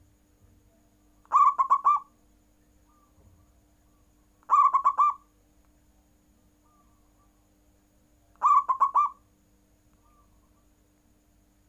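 Zebra dove (perkutut) singing: three short cooing phrases, about three to four seconds apart, each a quick run of rolling notes lasting under a second.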